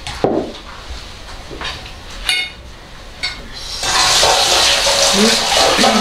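Plates and cutlery clinking a few times, one knock ringing briefly. About four seconds in, a tap starts running with a steady rush of water.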